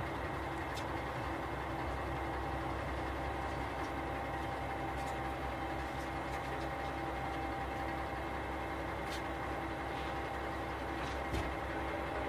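JR Shikoku 2000 series diesel railcar's Komatsu SA6D125H engine idling while the car stands still, heard from inside the car: a steady low rumble with a steady whine above it.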